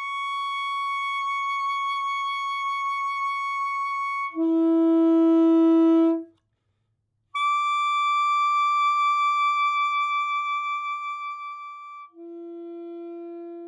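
Alto saxophone playing an overtone exercise twice. A high overtone (an octave and a fifth above the fingered note), produced by voicing with tongue and throat alone, is held for about four seconds and then slurred down to the low fingered note. The first low note is the loudest.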